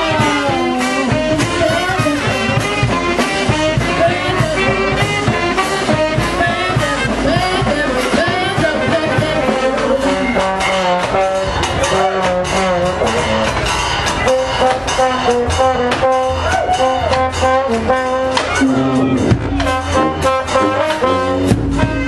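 Brass marching band playing live: saxophones, trombones and sousaphones over snare and bass drums, at a steady loud level.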